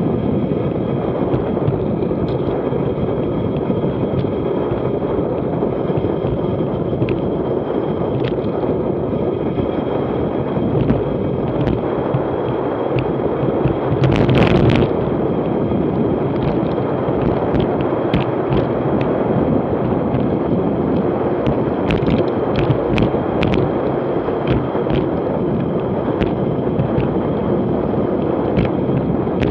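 Steady wind rushing over the microphone of a bicycle coasting downhill at about 40 mph, with scattered sharp clicks and a louder swell about halfway through.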